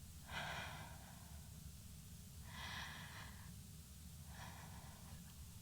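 A person taking slow, deep breaths into a close microphone, three breaths about two seconds apart, to calm their nerves.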